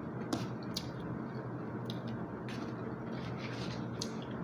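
Plastic spoon scraping through rice in a plastic takeaway meal tray, with a few sharp clicks of plastic cutlery against the tray, over a steady room hiss.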